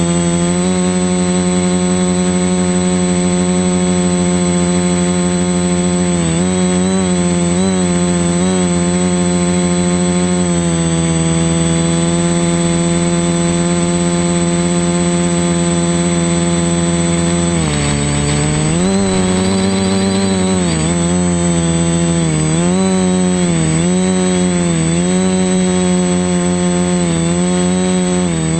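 Motor and propeller of a radio-controlled aircraft running loud and close, heard from the onboard camera, with a thin steady high whine above. The pitch holds steady, then dips and recovers with throttle changes, once deeply about two-thirds of the way through and several times near the end.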